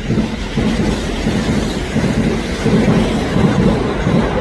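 Kintetsu electric train passing, its wheels beating over the rail joints in a regular rhythm of about three beats every two seconds, loudest in the middle and fading near the end.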